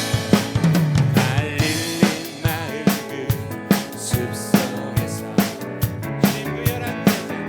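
Worship band music with a drum kit keeping a steady beat, bass drum and snare hits falling evenly over sustained keys and other instruments.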